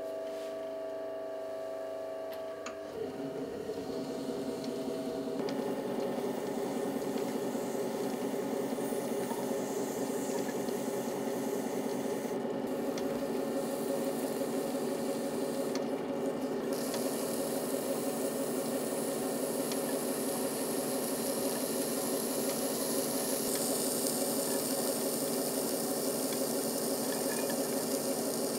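Potter's wheel turning while a loop trimming tool shaves clay off a spinning pot: a steady rasping scrape over the wheel's hum, turning hissier about halfway through.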